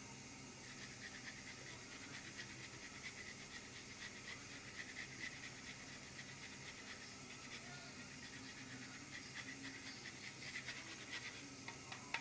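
Hard pecorino cheese being grated by hand over a dish: a faint, rhythmic rasping of grater strokes with small ticks.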